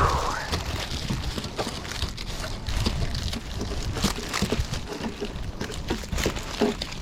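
Scattered light taps, scrapes and rustles of hands clearing debris off a metal pole-barn roof, irregular throughout, with wind rumbling on the microphone.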